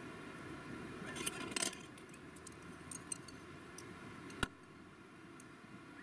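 A metal ladle clinking and tapping against a metal camping pot as miso paste is worked into the boiling seafood soup, a scatter of light clicks with one sharper click about four and a half seconds in, over a low steady rumble.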